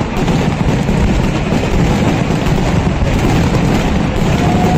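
A Kerala temple-festival fireworks barrage (vedikettu): many firecrackers bursting in rapid, overlapping succession, so close together that they merge into one continuous loud rumble of cracks and bangs.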